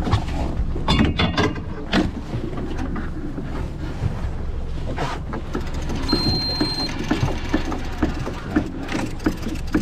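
Boat engine running with a steady low hum, under repeated knocks and clatter of gear at the gunwale and water sloshing against the hull. About six seconds in there is a short high electronic beep.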